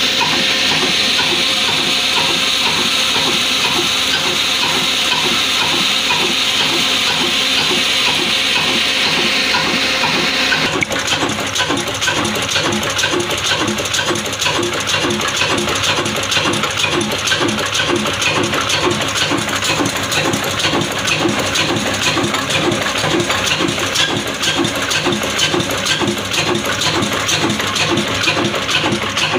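Old diesel oil engine running with a steady, regular beat while it drives a belt-driven flour mill. For the first ten seconds or so a steady hiss sits over the engine beat. The hiss then cuts off abruptly and the engine beat carries on alone.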